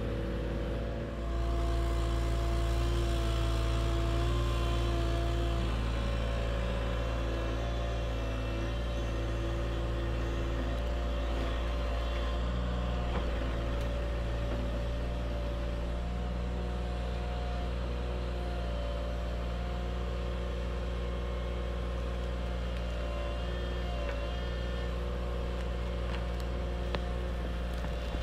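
Mini excavator's diesel engine running steadily, with a steady hum and a whine from the hydraulics that shifts slightly in pitch now and then as the arm and bucket move.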